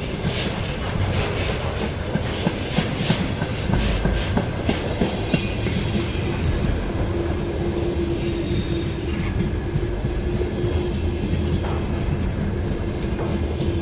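Container freight train cars rolling past with a steady rumble and the clack of wheels over rail joints. About halfway in, a steady low hum from the wagons sets in and holds.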